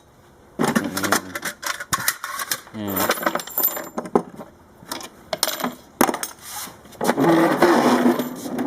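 Clattering and clinking of metal objects being moved and set down: a string of sharp knocks, with a brief high metallic ring about three seconds in.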